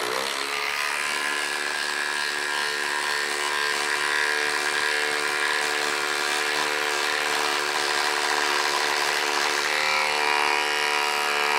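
Milwaukee M12 Fuel impact driver hammering without a break as it drives a 4-inch lag screw into a wooden log, a steady rapid rattle that shifts slightly in tone about ten seconds in.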